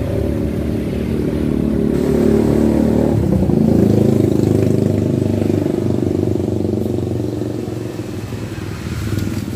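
A motorcycle engine running close by, getting louder to a peak about four seconds in and then fading as it passes, with a shift in engine pitch a little before the peak.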